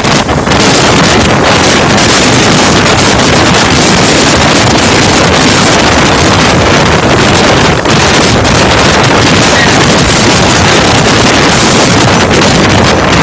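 Strong storm wind buffeting a phone's microphone: a loud, steady rush of noise, close to overloading the recording.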